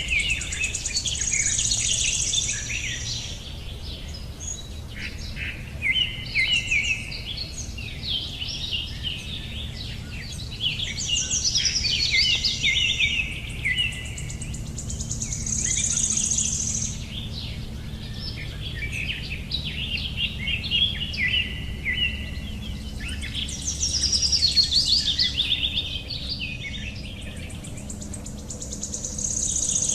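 Songbirds singing, with bursts of quick chirps and trills and some long high notes that recur every few seconds, over a low steady background rumble.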